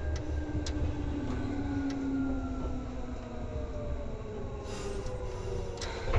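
Seibu 2000 series electric train heard from inside the car as it slows on the approach to the terminus. The traction motor whine falls steadily in pitch over the low rumble of the wheels, with a few light clicks and a louder knock at the very end.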